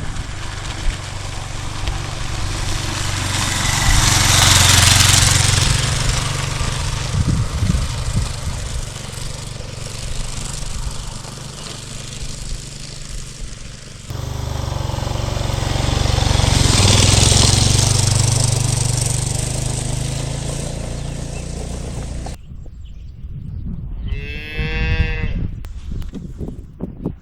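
A motorcycle riding along with heavy wind rush over a low engine rumble, swelling and fading twice with abrupt cuts between. Near the end a cow moos once, a call of about two seconds.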